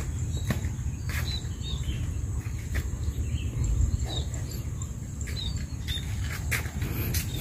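Rural outdoor ambience: a steady high-pitched insect buzz with scattered short bird chirps, over a low steady rumble and a few light clicks.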